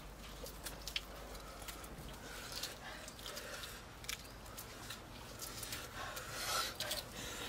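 Boiled eggs being peeled by hand: eggshell cracking and rubbing off in scattered small clicks and scrapes.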